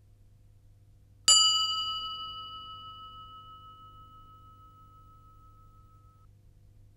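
A bell struck once about a second in, ringing with one clear tone that slowly fades over about five seconds: the cue for the learner to say the answer to the exercise.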